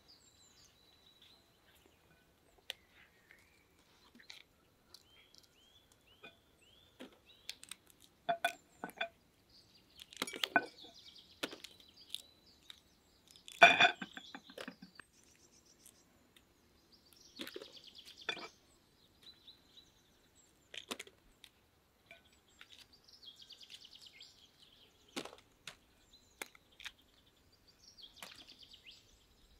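Fresh broad bean (fava) pods snapped and split open by hand for shelling: irregular crisp cracks and rustling in short clusters, the loudest about halfway through. Small birds chirp faintly in the background.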